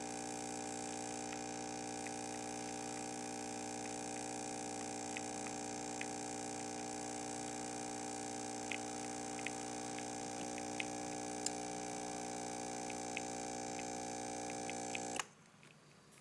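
Home espresso machine's pump running with a steady buzzing hum while pulling a shot, light ticks over it, then switched off and cutting out suddenly near the end.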